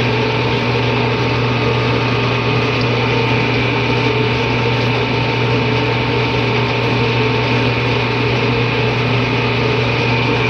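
Restored 18-inch LM dough sheeter running steadily under its electric motor, a constant hum and mechanical whir from the motor and drive, with no change in speed.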